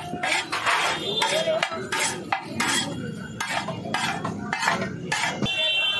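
Metal spatula scraping and clanking against a large iron tawa as chopped vegetables are tossed and stirred, in sharp irregular strokes about two a second.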